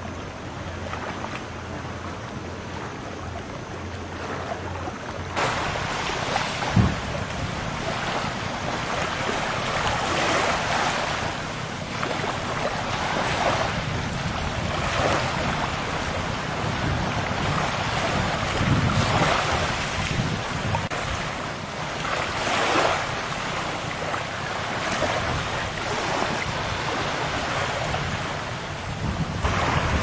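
Sea waves washing in surges every few seconds, with wind blowing across the microphone. There is a single thump about seven seconds in.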